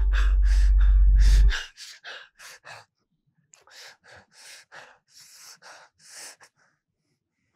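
A young man gasping and breathing hard and fast in panic after a nightmare, about two or three ragged breaths a second with a short pause midway. A deep droning music swell under the first breaths cuts off suddenly about a second and a half in.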